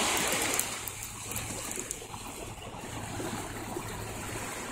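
Steady outdoor background noise: a high, even hiss over a faint low hum, with a few light clicks in the first second.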